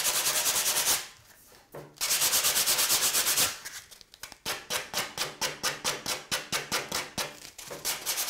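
Coarse grit-60 sandpaper rubbed by hand along the iron-on edge banding of a melamine window board, sanding the banding's rounded front edge down flush. First come a few longer strokes with short pauses, then from about halfway a fast run of short back-and-forth strokes, about five a second.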